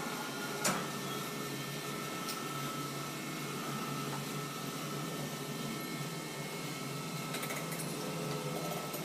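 Steady mechanical hum of machinery running, with one sharp click under a second in.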